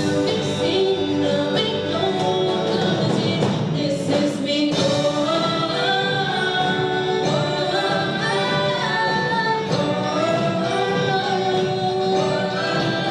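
Live concert music with singing, several voices at once.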